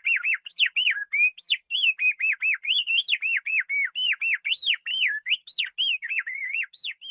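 Canary singing: a fast, unbroken run of clear whistled notes swooping up and down, about three to four a second, breaking off at the very end.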